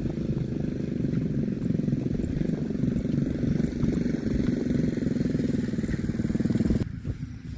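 A small engine running steadily with a fast, even pulse, cutting off abruptly near the end.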